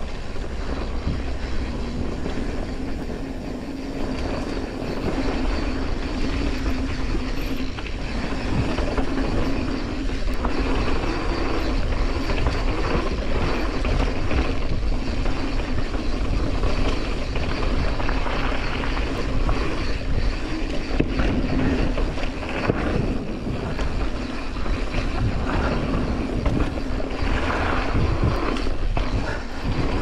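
Mountain bike riding down a dirt trail: a steady rushing noise of wind and rolling tyres, with frequent rattles and knocks as the bike goes over bumps.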